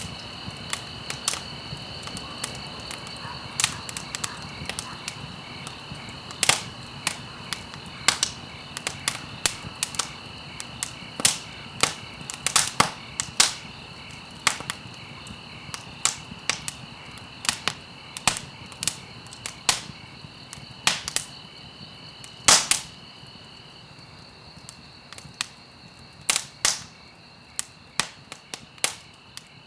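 Wood fire crackling in a fireplace: sharp, irregular pops and snaps over a low hiss, with a few louder pops and a brief thinning of the crackle about three quarters of the way through.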